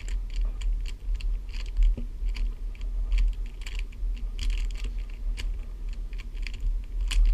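YJ Guanlong plastic speedcube being turned by hand to scramble it: an irregular run of quick clicks and clacks as the layers turn, several a second, over a low steady hum.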